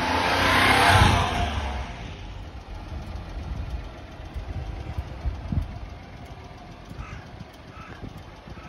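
1994 Honda Acty truck's small three-cylinder engine idling, with a brief loud rush of noise about a second in before it settles to a quieter steady idle.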